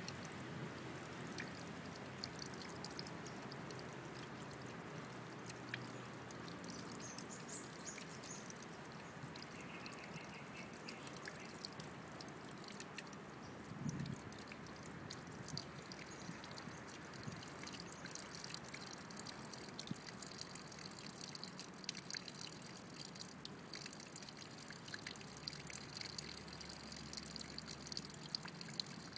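Thin stream of water trickling and dribbling steadily, with scattered small drips and splashes and one louder knock about halfway through.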